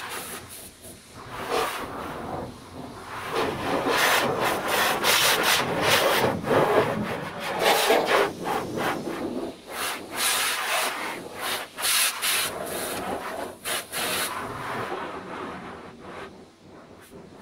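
The car's body being scrubbed by hand, heard from inside the car: irregular rubbing strokes across the paint and glass, getting quieter near the end.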